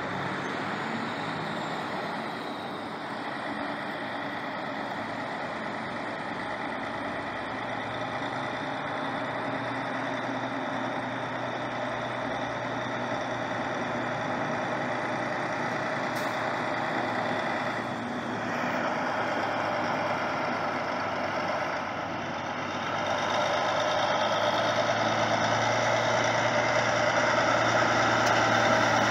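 Highway traffic with a semi-truck's engine running steadily as it comes along the road, getting louder for the last several seconds as trucks pass.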